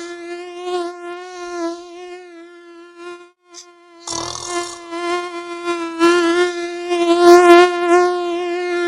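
Mosquito whining steadily in flight with a slight waver; it breaks off briefly a little after 3 seconds, then returns louder and grows loudest toward the end, as if flying close to the ear. A short breathy snore sounds about 4 seconds in.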